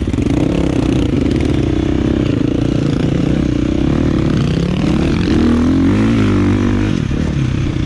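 KTM off-road dirt bike's single-cylinder four-stroke engine running while ridden, its pitch rising and falling with the throttle.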